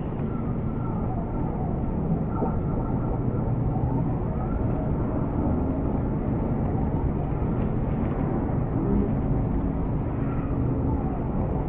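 Railway station ambience carried by a steady low engine rumble, with a few held low tones and faint tones sliding up and down over it.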